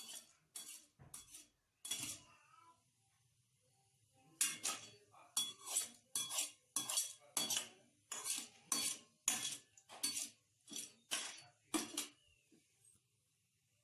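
Popcorn kernels being stirred in oil in a pan with a spoon: a run of short scraping strokes against the pan, about two a second, with a pause of about two seconds near the start.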